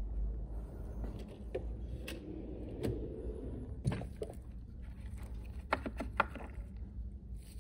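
Tools being handled: a Snap-on tool chest drawer pulled open and a chrome socket lifted out of a plastic socket-set case, giving scattered clicks and knocks, with a sharp cluster of clicks about six seconds in. A steady low hum runs underneath.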